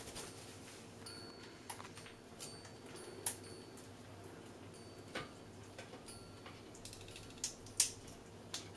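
Scattered soft clicks and taps, a second or two apart, from an African grey parrot clambering along a thick rope perch, hanging upside down and then righting itself; a sharper pair of clicks comes near the end.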